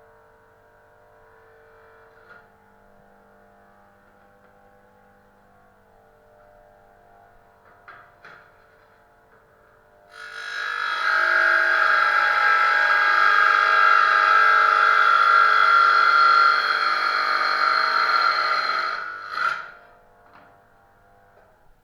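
Electric power tool motor running at steady speed for about nine seconds, then cutting off, after a stretch of faint hum and a few small clicks.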